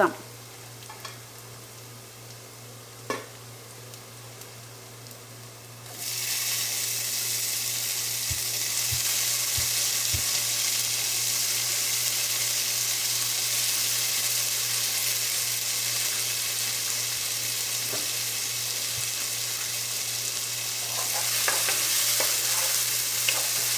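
Chopped tomato going into hot oil with sautéed onion, ginger, green chilli and garlic: about six seconds in, a sudden loud sizzle starts and keeps on as the pan is stirred. Before it, only a low steady hum and a single tap.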